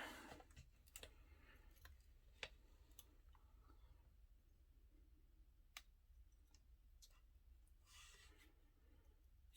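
Faint, scattered clicks of a pick and tension tool working the pin stack of a dimple-core bicycle U-lock, with the loudest clicks about two and a half and six seconds in.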